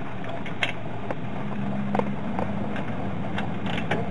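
Ratchet wrench clicking now and then as the brake caliper bracket bolts are turned out, over a steady low hum.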